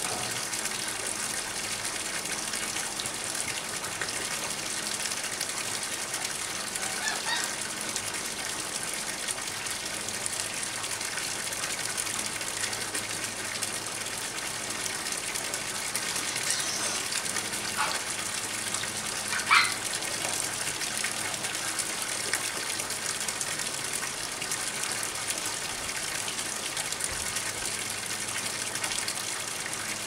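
A thin stream of water pouring steadily into a pond, splashing on the surface with an even, unbroken gush. A brief sharper sound cuts in once, about twenty seconds in.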